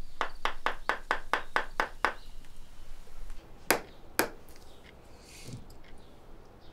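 Shoemaker's hammer tapping at a workbench: nine quick, even taps, about four a second, then two harder strikes half a second apart.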